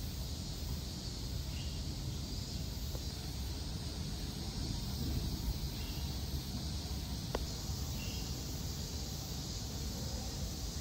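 Steady outdoor ambience: a low rumble and a faint high hiss, with a few faint short chirps and one sharp click about seven seconds in.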